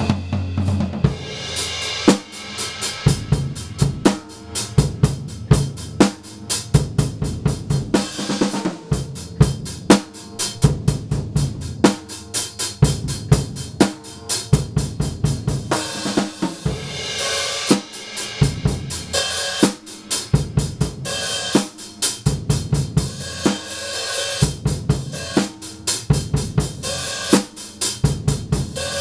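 Sound Percussion drum kit with stock drumheads and Wuhan cymbals played in a solo: snare, bass drum and hi-hat in fast, continuous strokes, with cymbal crashes ringing out at several points.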